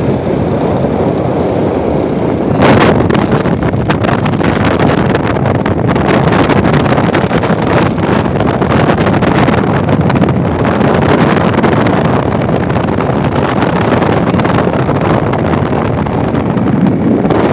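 Wind rushing over the microphone on top of steady vehicle and road noise, with a brief swell about three seconds in; no telolet horn tones.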